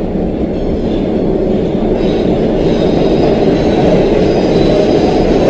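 Metro train at a station platform: a steady low rumble that slowly grows louder, with a faint high whine coming in about two seconds in.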